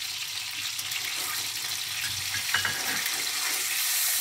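Whole boiled eggs sizzling steadily as they fry in hot mustard oil with turmeric in an aluminium kadai, with a few short scrapes of the spatula against the pan about halfway through.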